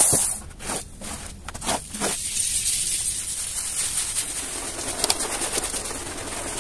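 Stiff-bristled push brush scrubbing a soaked, foamy carpet: a steady wet swishing rasp from about two seconds in. Before it there are a few short, low pitched sounds.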